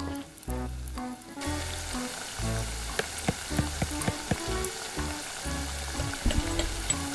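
Fat sizzling in a miniature ceramic pot over a tiny stove, the hiss starting about a second and a half in, with a small metal spoon clicking against the pot as flour is stirred in.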